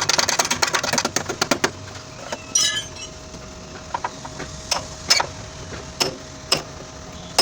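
Quick run of light hammer taps on car body sheet metal, about ten a second, then a string of single knocks spaced half a second to a second apart, with a brief metallic ring near the middle.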